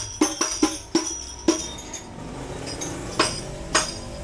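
Hadroh frame drum being struck in a sound check: a quick run of strokes in the first second and a half, a pause, then two strokes about half a second apart, each with a high ringing after it.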